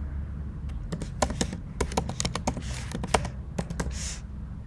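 Computer keyboard typing a terminal command: an irregular run of keystroke clicks that stops near the end, over a low steady hum.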